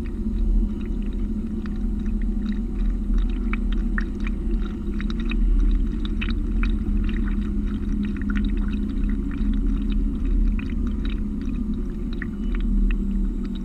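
Water lapping and splashing against the hull just below the camera, in many short irregular slaps, over a steady low hum.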